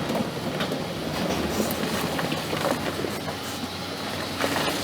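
Excavator working stones in a riverbed: the diesel engine runs steadily under scattered knocks and clanks of stone and steel.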